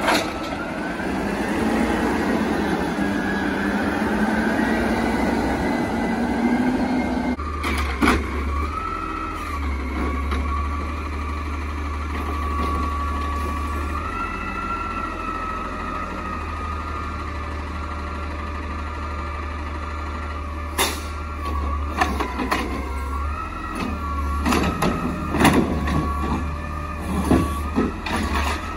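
CNG automated side-loader garbage trucks working: first an Amrep HX-450 on a Peterbilt 320, then, after a sudden change about a quarter of the way in, a McNeilus Autoreach. The engine runs under a wavering whine that rises and falls as the arm works. Several sharp knocks and bangs come in the last third.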